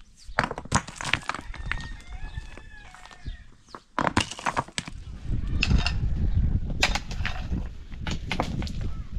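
Loose rocks clattering and knocking together as they are picked up by hand and tossed onto a stony pile, in short irregular clacks. A bird chirps briefly about two seconds in, and a low rumble comes in about five seconds in.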